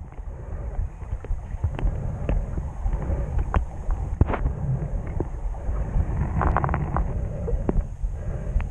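Underwater noise picked up by a submerged camera: a steady low rumble with scattered sharp clicks and crackles, and a short cluster of crackling about six and a half seconds in.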